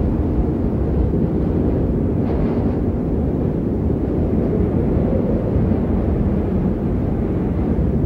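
Strong wind blowing across the microphone: a steady low rumble.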